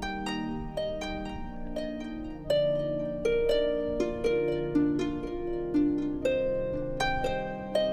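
Background music: a slow melody of single ringing, plucked-sounding notes, about two a second.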